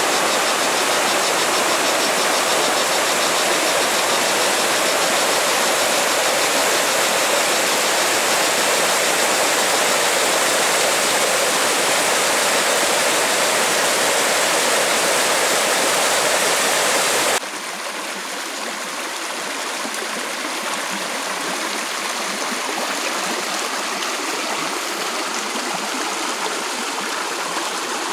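Steady rushing of water from a small mountain waterfall. About two-thirds of the way through it cuts abruptly to a quieter, thinner rush of running water.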